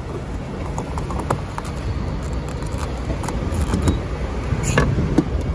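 Fuel nozzle being hung back on the pump and the car's filler cap closed: scattered small clicks and knocks, the loudest near the end, over a steady low rumble of road traffic.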